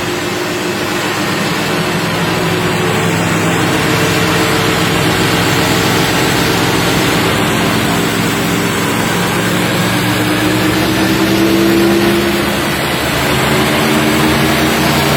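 Ford Expedition engine running hard under load in a burnout, its transmission stuck in second gear; the engine pitch climbs about ten to twelve seconds in, then settles.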